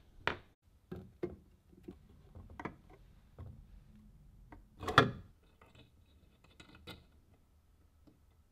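Irregular clicks and knocks of small hard parts being handled, with the loudest knock about five seconds in.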